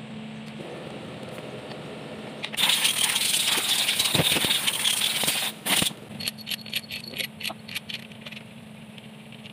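Metal rattling, then a run of light metallic clicks with a faint ring, from hands working the rocker arms and a feeler gauge while setting valve clearance on a Kubota diesel cylinder head. A low steady hum runs underneath.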